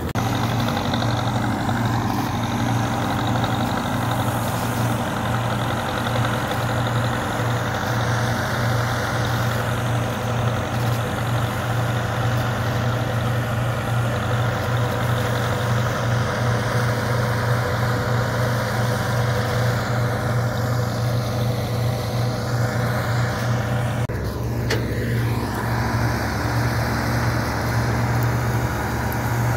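Zetor 7211 tractor's four-cylinder diesel engine running steadily while it hauls loaded grain trailers, a constant low drone. The deepest part of the engine note shifts near the end.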